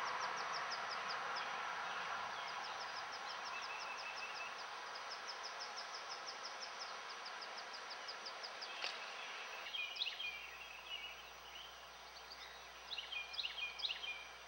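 Flowing river water with a fast, evenly repeated high ticking call over it, fading away. About ten seconds in, the water sound drops out and songbirds chirp in short bursts, busiest near the end.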